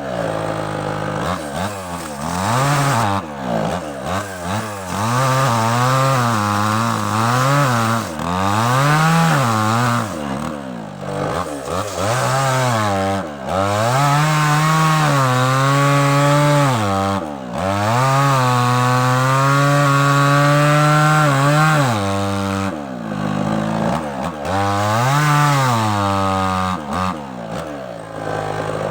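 Small two-stroke chainsaw sawing through sengon wood, the engine revving up and dropping back again and again, with several longer stretches held at high speed.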